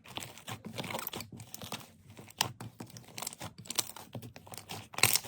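Slime being squeezed and stretched by hand, giving irregular crackling and small popping clicks, with a louder pop near the end.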